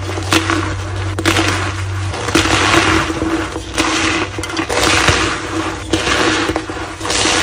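Reformed gym chalk being crushed, a run of dry crumbling crunches coming in surges roughly once a second.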